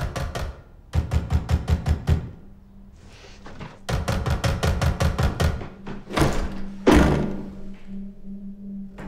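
Tense film score: trains of rapid, sharp percussive ticks, a low steady drone coming in about two seconds in, and two rising swells, the second ending in a heavy hit about seven seconds in.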